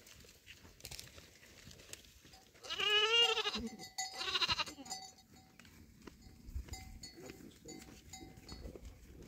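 Goat bleating twice: a long wavering bleat about three seconds in, then a shorter one about a second later.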